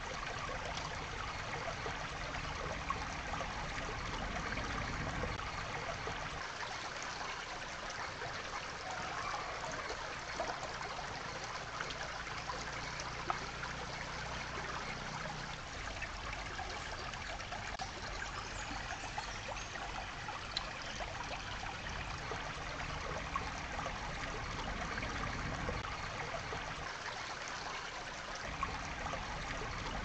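Shallow stream water trickling and flowing over rocks and sand, a steady running-water sound.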